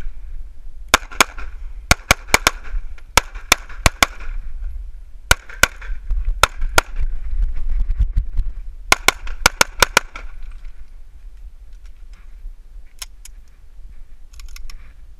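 ZEV ISI Speedgun pistol fired in rapid strings of two to six shots, about twenty in all, with steel plate targets ringing after the hits. The firing stops about ten seconds in, and a few faint clicks follow.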